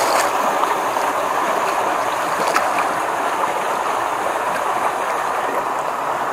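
Shallow muddy stream water splashing and sloshing steadily, churned up as a stick is jabbed in under the roots of the bank.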